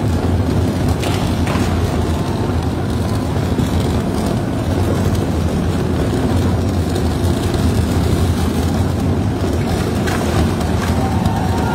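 Steady low rumble of heavy tunnelling machinery, running at an even level with no break.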